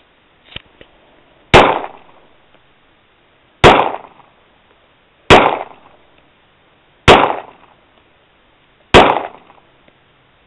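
Springfield 1911A1 pistol firing .45 ACP: five single shots about two seconds apart, each followed by a short echo.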